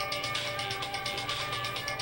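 Background music: held notes that change pitch, over a fast, steady ticking beat.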